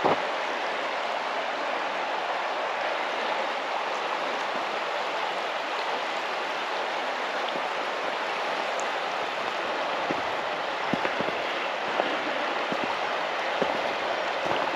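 Steady rush of running creek water, with a few soft knocks in the last few seconds.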